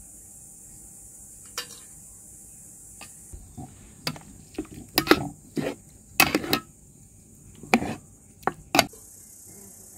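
Metal slotted skimmer clinking and scraping against the sides of a large metal cooking pot while stirring mutton shanks and onions in broth: a string of separate, irregular clinks, thickest in the second half.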